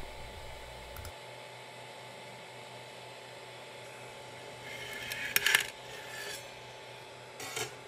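A metal scraper prying a freshly 3D-printed plastic part off the printer's bed: a short scrape with a few sharp clicks about five seconds in, and a couple more clicks near the end, over a faint steady hiss.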